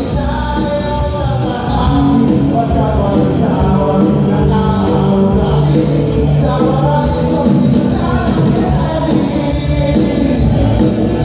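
Live band playing a song with a singer, loud through the PA system over a steady bass line.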